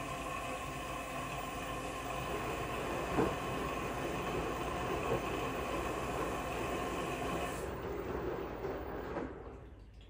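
LG washing machine running on its delicate cycle: a steady whirring with a whine in it and a couple of light knocks. It dies away and stops near the end.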